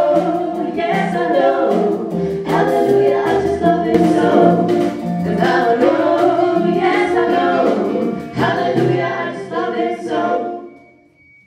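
Three women singing in close harmony with a small live swing band behind them, finishing the song. The last chord dies away about ten and a half seconds in.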